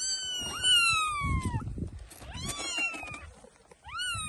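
Newborn kittens crying: high, thin mews that fall in pitch, two overlapping long ones at the start, a shorter one about two and a half seconds in and another near the end.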